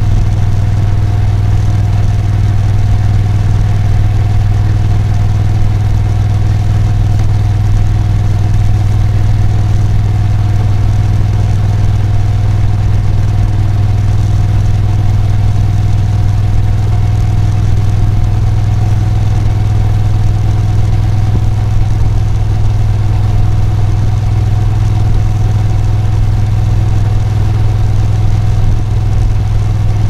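Moto Guzzi V7 Special's 850 cc air-cooled transverse V-twin running at a steady, unchanging engine speed, with a deep low note and a fainter higher tone above it.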